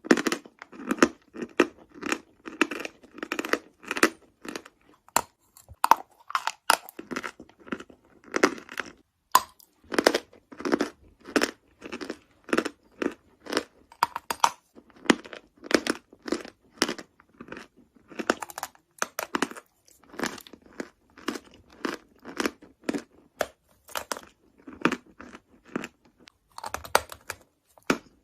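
Close-up crunching and chewing of dry chalk taken in big bites: a fast, irregular run of crisp crunches, a few a second.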